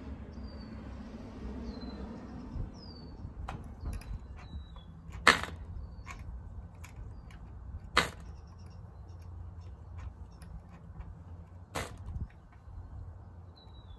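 Three sharp snaps a few seconds apart as the propeller of a Cox .049 glow engine is flicked by hand, the engine not catching. Birds chirp over a steady low rumble.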